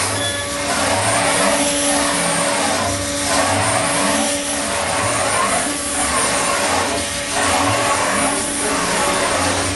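High-speed CNC milling machine's spindle running with a steady whine while the cutter mills polyurethane foam, a dense rushing cutting noise under it. The sound swells and eases every second or so as the head sweeps back and forth over the block.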